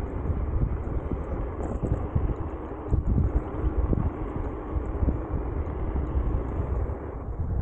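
Wind buffeting the handlebar camera's microphone together with the tyre rumble of a Nami Klima electric scooter riding along a paved path: a steady low rush that flutters unevenly.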